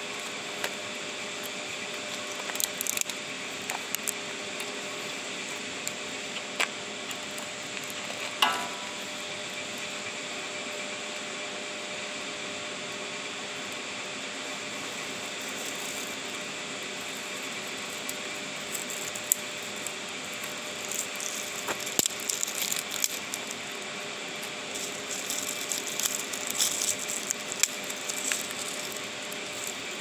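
Wood fire crackling in a metal fire pit, with scattered sharp pops: one louder pop about eight seconds in and busier crackling in the second half. Underneath runs a steady rushing hiss of running water.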